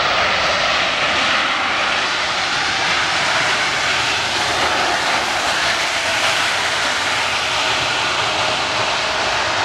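Airbus A350-1000 airliner's Rolls-Royce Trent XWB jet engines heard steadily as the aircraft rolls out after touching down, a loud even rush of noise that neither rises nor falls.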